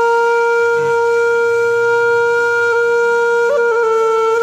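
Background music: a single long note held on a flute-like wind instrument, wavering briefly about three and a half seconds in.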